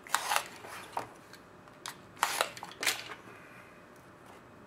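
Cardboard trading card box being opened and handled: about four short scrapes and rustles within the first three seconds, the loudest about two and a half seconds in.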